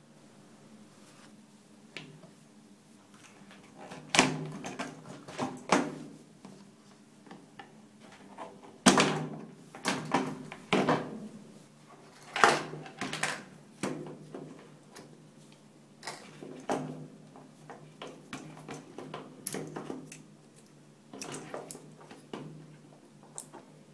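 Irregular sharp plastic clicks, knocks and rattles as the water inlet valves of a Hoover 500M washing machine are worked free of their plastic housing by hand and handled with their wiring still attached.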